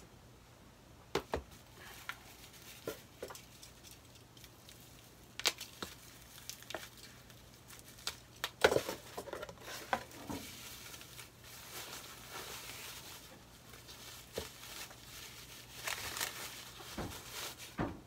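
Plastic wrapping crinkling and tearing as small airbrush paint jars are unwrapped by hand, with scattered clicks and knocks from the jars and the cardboard box being handled. The loudest knock comes about halfway through, and stretches of crinkling follow.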